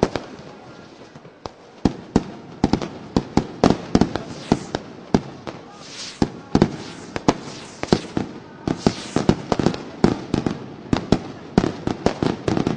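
Fireworks and firecrackers going off in an irregular barrage of sharp bangs and pops. The bangs are sparse for the first two seconds, then come several a second, with stretches of hissing crackle around the middle.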